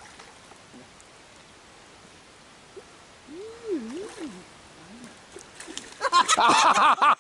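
Steady rain falling on the river and bank, with a faint wavering hum from a person about halfway through. Near the end a loud, warbling, voice-like cry breaks in over the rain and is the loudest sound.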